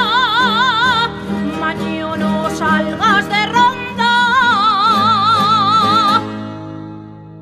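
A jota sung solo, the singer holding long notes with a wide vibrato over plucked-string accompaniment. The last held note ends about six seconds in and the music fades out.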